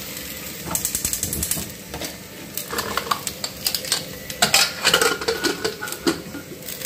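Aluminium pressure cooker lid being put on the pot and locked: metal clinks and clanks, with a quick run of light clicks about a second in and louder ringing clanks around three and five seconds in.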